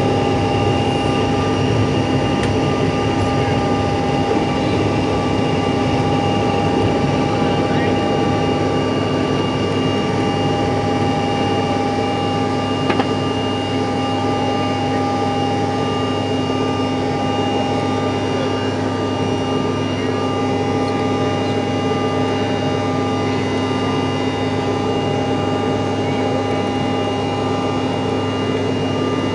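CRJ-700's rear-mounted GE CF34 turbofans running at steady power, a constant rush of engine noise with several steady whines over it.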